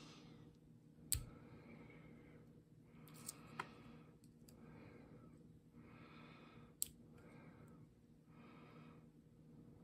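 Faint metal clicks of a lock pick and tension wrench working the pins of a brass lock cylinder, a few sharp clicks with the loudest about a second in, over soft breathing that comes roughly once a second.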